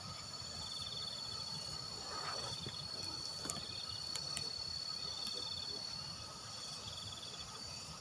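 Insects chirping in the undergrowth: a steady high-pitched trill throughout, with a second insect's pulsed chirping coming in short bouts, about four times.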